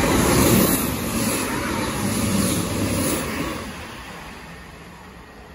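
Two passenger trains passing beneath on adjacent tracks, a Class 159 diesel multiple unit and a Class 450 electric multiple unit, with a steady rumble of wheels on rail that fades away from about three and a half seconds in.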